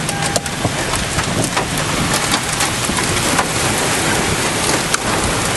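Heavy rain mixed with hail pelting a car, heard from inside the cabin: a dense, steady hiss dotted with many sharp ticks of hailstones striking.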